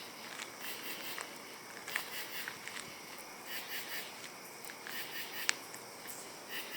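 Night chorus of small calling creatures: steady high-pitched calls with short chirps repeating over them, and a sharp click about five and a half seconds in.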